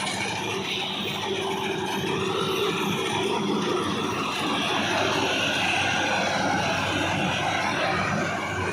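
Fieldking FKCH-2200 combine harvester running steadily, its engine and machinery making a continuous mechanical drone.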